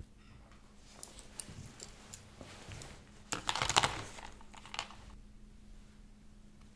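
Gloved hands handling clay and plastic crafting tools on a cutting mat: scattered light clicks and crinkling, densest and loudest for about a second in the middle.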